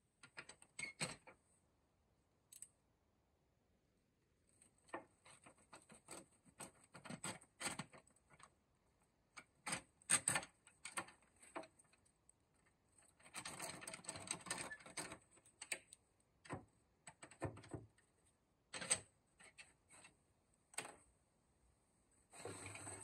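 Irregular wooden clicks and taps as a thin metal tool works in among the wooden slats of a roll-top desk's tambour, with a longer stretch of rattling clatter about halfway through and a shorter one near the end.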